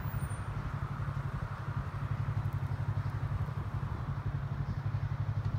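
Sport motorcycle engine idling steadily, with a low, even pulsing.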